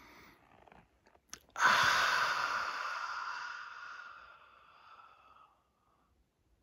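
A man's long, audible exhale through the open mouth, like a deep sigh. It starts sharply about a second and a half in and fades away over about four seconds, after a quieter in-breath.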